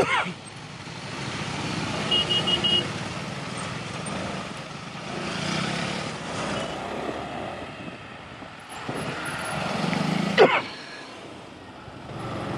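Motorcycle riding through slow, dense city traffic: engine and road noise of the bike and the vehicles around it. A quick run of four high beeps comes about two seconds in, and a sharp sound sliding down in pitch comes at the start and again, louder, about ten seconds in.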